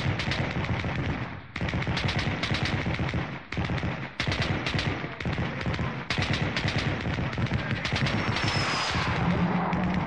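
Rapid machine-gun fire, shot after shot in long runs, with short breaks about a second and a half in and again around three and a half to four seconds.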